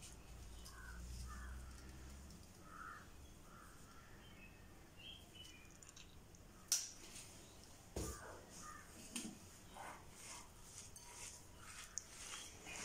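Faint bird calls, short calls scattered through the first half, over a quiet kitchen. Two sharp knocks of kitchenware come about seven and eight seconds in, followed by lighter clicks of handling.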